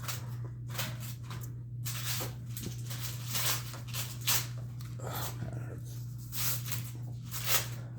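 Wrapping paper and tape being torn and crinkled as a gift is unwrapped, in irregular rustling bursts, over a steady low hum.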